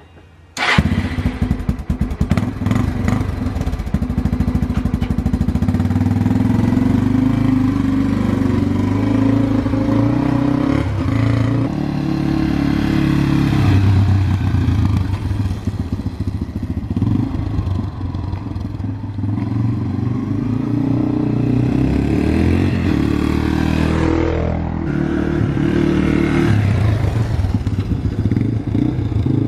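Dirt bike engine starts up about a second in and keeps running, its revs rising and falling.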